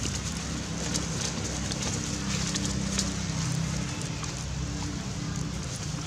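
Dry leaf litter crackling and rustling in scattered sharp clicks as macaques move over it, over a steady low hum.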